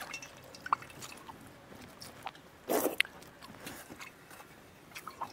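Quiet eating sounds: fingers squishing water-soaked rice (pakhala) in a steel bowl, and chewing, with scattered small clicks and one short, louder noisy burst about halfway through.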